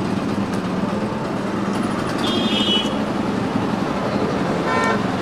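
Steady street traffic noise with vehicle engines running. A short high tone sounds a little past two seconds in and another near the end.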